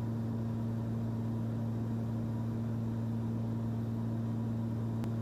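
Cessna 340's twin piston engines and propellers droning steadily in the cockpit at descent power, a low, even hum with two strong steady tones. A faint click sounds near the end.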